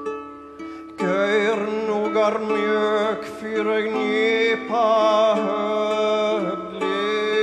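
A plucked string instrument picks out ringing notes, then about a second in a man's voice comes in singing long, wavering, ornamented notes in Old Norse over the strings.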